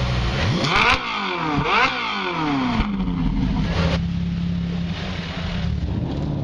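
Sports car engine revved hard twice, its pitch climbing and falling each time, then running at a steadier pitch as the car moves off.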